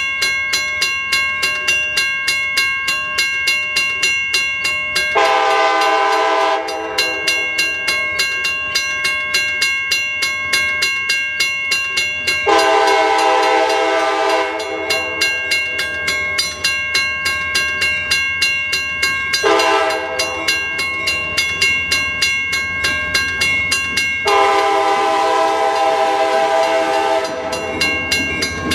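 Freight locomotive horn sounding the grade-crossing signal: two long blasts, a short one and a final long one, over a bell ringing in rapid, steady strokes. Near the end the low rumble of the approaching train rises.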